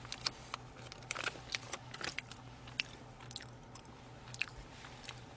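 Faint close-miked chewing of sushi: scattered soft mouth clicks and smacks.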